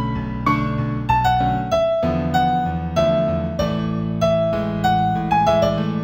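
Gentle new-age keyboard piece in A major: a melody of struck, decaying piano-like notes, two or three a second, over held low chords.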